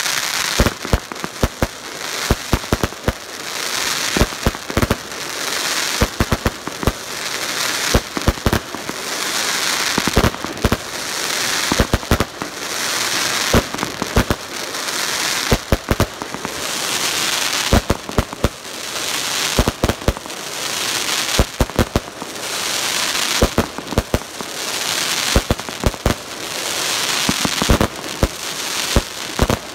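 Firework cake firing shot after shot: sharp launch reports and bangs, each shot followed by a crackling hiss that swells and fades, about every two seconds.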